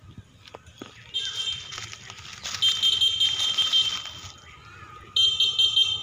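Cicadas buzzing: a shrill, rapidly pulsing drone that starts about a second in, grows louder, breaks off for about a second and starts again near the end.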